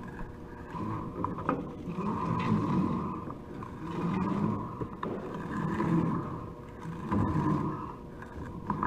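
A bundle of data cables dragging over an empty plastic wire spool and through a wall opening, a rubbing scrape that swells and fades in surges every couple of seconds as the cables are pulled.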